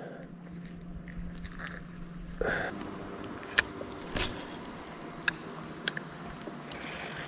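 Sharp clicks and knocks of a spinning rod and reel being handled and cast, over a steady low hum that drops away about two and a half seconds in.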